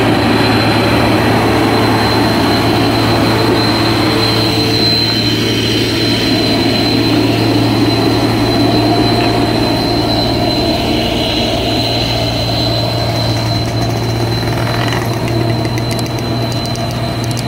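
Hino 500 heavy truck's diesel engine labouring in a low gear as the loaded truck crawls up a steep climb and passes close by. It is a loud, steady low drone with a thin high whine over it, easing off a little near the end as the truck pulls away.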